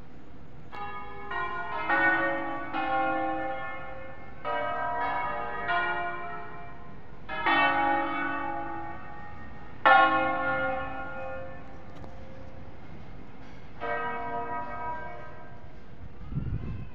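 The seven-bell peal of Cremona Cathedral, tuned in A-flat major, ringing in concerto style: groups of bells struck in quick melodic runs, each group ringing on and fading before the next, the loudest strike about ten seconds in. It is a solemn concerto announcing the start of a celebration.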